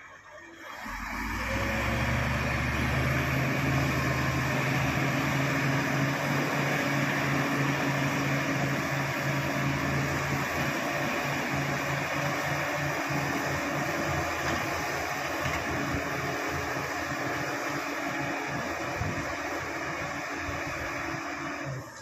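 Crawler bulldozer's diesel engine working hard as it pushes a load of soil, with irregular knocks and clatter from about halfway through. The sound comes in about half a second in and swells over the next second or so.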